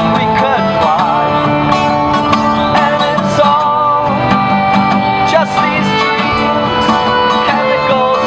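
Live folk band playing an instrumental passage: a fiddle melody with vibrato over accordion chords, with a steady rhythm of strikes underneath.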